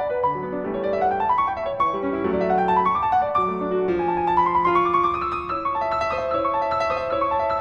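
Piano music laid over the video: quick runs of notes climbing and falling.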